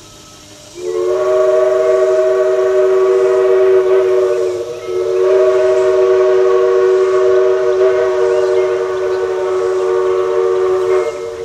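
Southern 4501's steam chime whistle blowing two long blasts, a steady three-note chord. The first runs about four seconds; the second starts almost at once and holds about six seconds, its lowest note dropping out near the end.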